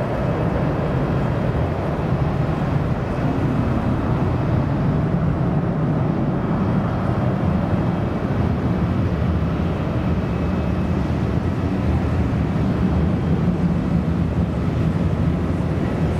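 Airbus A330-200's twin jet engines at takeoff power as the airliner climbs away: a steady deep rumble with faint high whining tones above it.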